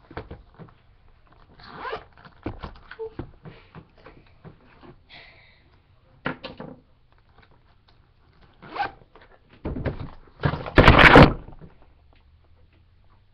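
Handling noises close to the microphone: scattered clicks and rustles, then one loud noisy burst about a second long near the end.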